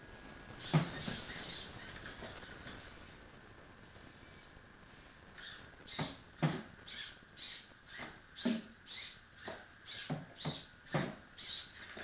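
Servos of a homebuilt six-legged walking robot whirring in short bursts as its legs step, with the feet tapping on the tile floor. One burst comes about a second in, and from about halfway the steps go at roughly two a second.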